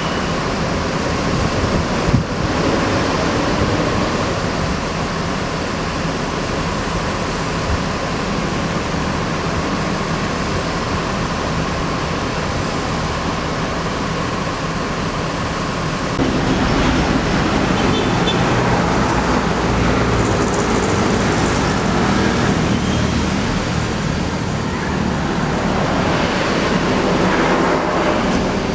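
Tour coach diesel engines running, a steady rumbling noise that grows louder and rougher about sixteen seconds in.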